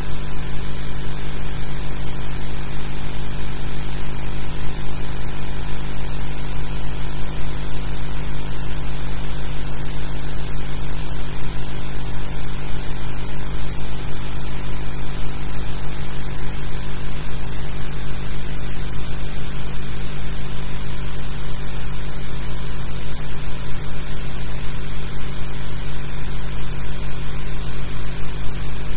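Steady hiss with a low, constant hum underneath, unchanging throughout, with no distinct events.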